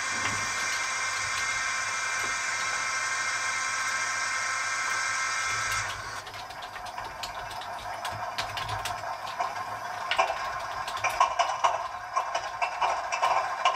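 Model diesel locomotive sound decoder playing its sounds through the model's small speaker. A steady hiss with thin whistling tones stops abruptly about six seconds in. A clattering, knocking engine-like sound follows and grows louder toward the end.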